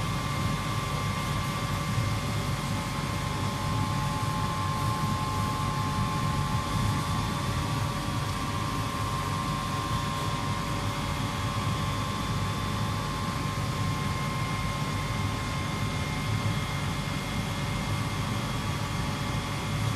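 Steady machine hum and hiss, deepest in the low range, with a few faint steady tones above it and no change.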